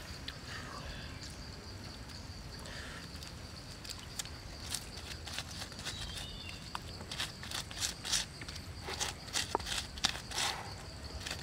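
Steady high insect drone over low outdoor rumble. In the second half come a cluster of short crackles and taps as sauce is brushed onto a chicken roasting on a stick over hot embers.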